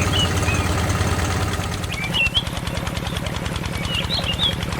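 A small engine running steadily with a fast, even beat; its low hum drops about two seconds in while the beat carries on.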